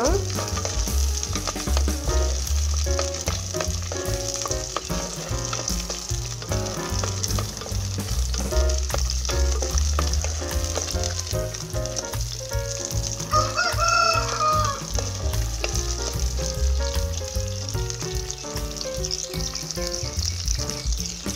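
Shallots, garlic and dried red chillies sizzling in oil in a clay pot as a ladle stirs them, the onions frying until soft. A rooster crows once, about two-thirds of the way through, over a low rumble.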